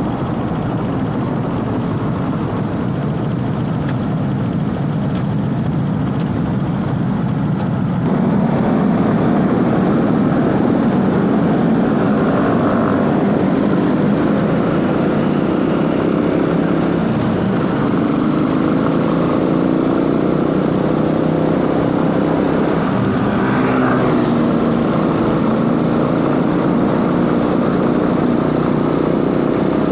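Motorcycle engine running on the move. It gets louder about eight seconds in, and in the second half the engine note rises and falls with the revs.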